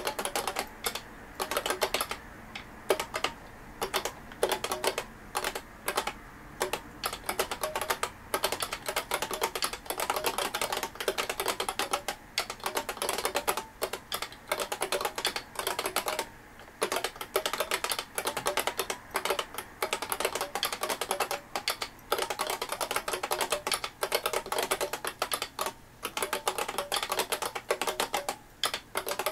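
Fast, continuous typing on an IBM Beamspring 5251 keyboard: a dense run of sharp beam-spring key clicks, broken by a few short pauses.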